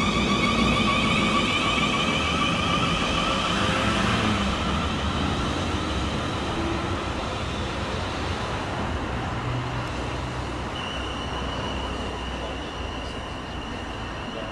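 A train passing through the station, its wheels and motors running loud with a whine, then fading steadily as it draws away. A steady high whine comes in about eleven seconds in.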